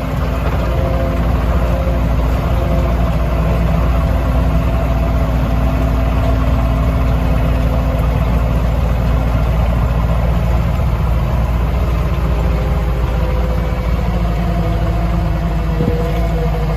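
A vehicle engine running steadily with a continuous low rumble.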